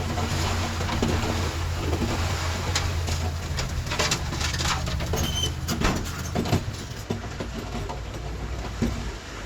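Bulldozer's diesel engine running steadily under load, with metallic clanks and rattles, several of them between about three and seven seconds in.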